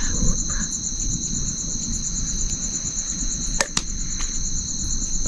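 Insects trilling steadily at two high pitches, one trill pulsing rapidly, with a single sharp click a little over halfway through.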